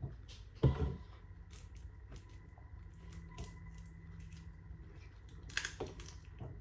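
Boiled seafood being eaten by hand, with scattered small shell clicks and crunches. A louder knock comes just under a second in, and a cluster of cracks near the end.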